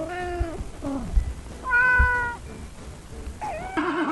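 Kittens meowing: a few short meows and one longer, steadier meow about two seconds in.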